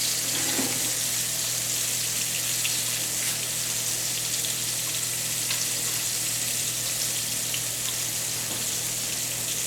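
Flour-dredged ground bison patties frying in a hot cast iron skillet: a steady sizzle with a few faint crackles.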